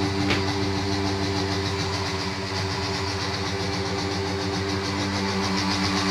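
Electric mixer grinder motor running steadily with a constant hum, grinding tomatoes. There is one short click just after the start.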